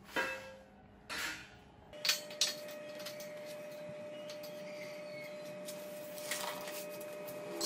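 Steel parts clinking and knocking as they are handled: a steel bracket plate set against square steel tubing, a handful of separate light clanks. A faint steady hum starts about two seconds in.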